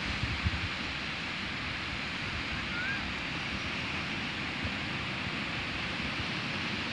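Small waves breaking and washing up a sandy beach, a steady surf hiss, with a few gusts of wind buffeting the microphone in the first second.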